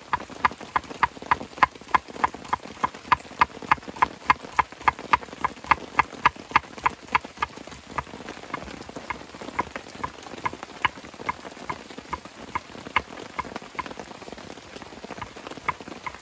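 Kitchen knife chopping shallot and garlic on a wooden cutting board: quick, even knocks of the blade on the wood, about three to four a second, then slower and more uneven strokes from about halfway.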